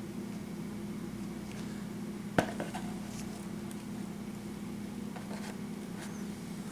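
A steady low hum with one sharp clink about two and a half seconds in, followed by a few faint taps.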